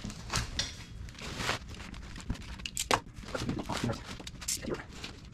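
A large plastic-wrapped cardboard box being slid and turned on a wooden tabletop: cardboard scraping on wood and plastic wrap rustling under the hands, with a sharp knock about three seconds in.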